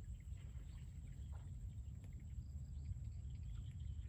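Outdoor rural ambience: a low steady rumble with faint, scattered high chirps from wildlife.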